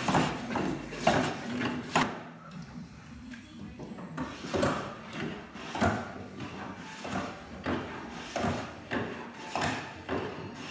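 Hand plane shaving the wooden surface of a fuselage mould: a series of short rasping strokes, roughly one a second, with a quieter gap between about two and four seconds in.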